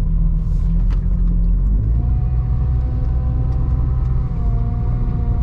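Supercharged Jeep Grand Cherokee ZJ's 4.0-litre inline-six and road noise, heard from inside the cabin while driving, as a steady low drone. About two seconds in, the drone's pitch shifts and a steady higher whine comes in.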